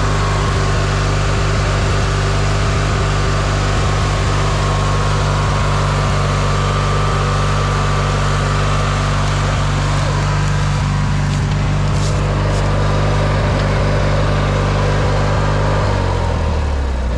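Vehicle engine running steadily close by, then shut off about sixteen seconds in, its pitch sliding down as it winds to a stop.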